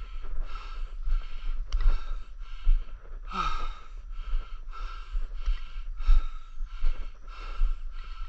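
Footsteps on a dirt trail scattered with dry leaves, about two a second, with wind rumbling on the microphone. A short falling sigh-like breath comes about three and a half seconds in.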